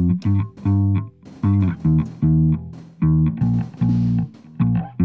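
Unmixed Jazz Bass track, recorded direct into an audio interface and re-amped through a clean amp simulator, playing a very simple bassline that follows the root notes. The notes are short and detached, roughly three a second, with brief gaps between them.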